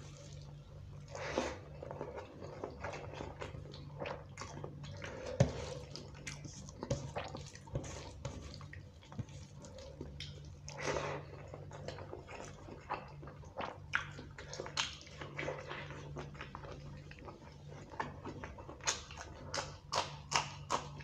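Close-miked hand-eating: fingers squishing and mixing khichuri rice with chicken curry on a steel plate, making wet squelches and small clicks, with one sharp click about five seconds in. Near the end, a quick run of clicks and smacks as a handful goes into the mouth and is chewed.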